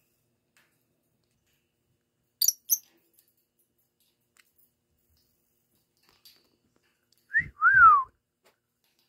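Two quick, high chirps from a lovebird about two and a half seconds in. Near the end comes a short rising whistle, then a louder whistle that rises briefly and slides down, with a low thump beneath it.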